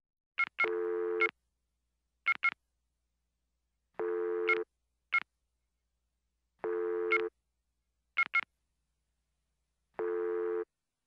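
Electronic beeps and tones: short high beeps, singly or in pairs, alternating with a longer, lower tone of about two-thirds of a second that comes four times, roughly every three seconds.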